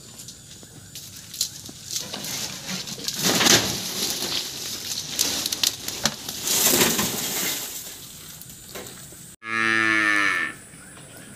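Scuffing and rustling of someone walking through mud and dry leaves, loudest around three and a half and seven seconds in. After a sudden cut near the end, a cow moos once, a falling call about a second long.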